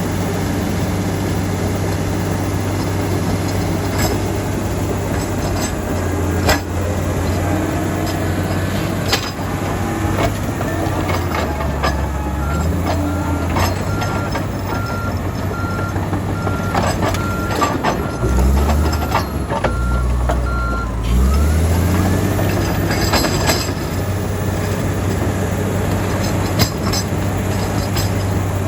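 Komatsu D85EX bulldozer's diesel engine running under load, its pitch dropping and rising again for a few seconds, with scattered clanks and knocks from the tracks and rock. In the middle, its reversing alarm beeps steadily for several seconds as it backs up.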